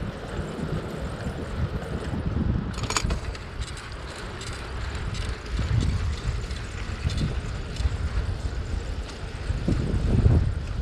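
Wind buffeting the microphone of a camera riding on a moving bicycle, a gusty low rumble, with tyre noise on the paved path underneath. A few light clicks and rattles come through, the sharpest about three seconds in.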